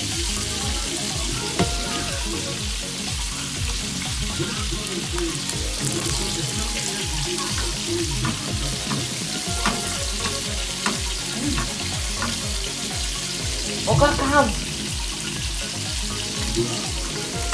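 Cooking oil sizzling in a hot nonstick frying pan on a gas stove: a steady hiss with scattered small crackles. A brief pitched sound comes about fourteen seconds in.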